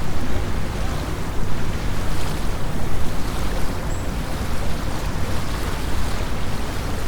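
Small wind-driven lake waves lapping on the shore, with autumn wind blowing over the microphone as a steady low rumble.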